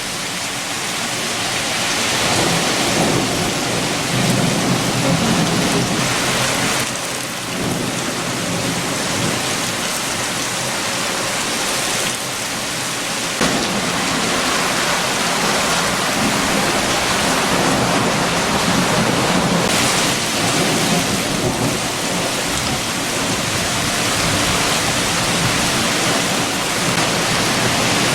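Heavy rain falling steadily in strong wind, with a low rumble that swells and fades in long surges.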